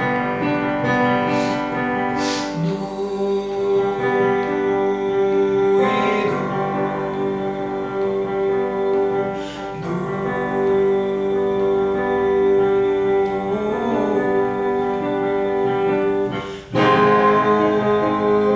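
A voice singing long sustained notes over instrumental accompaniment. The notes change every few seconds, and one is held for about ten seconds in the middle.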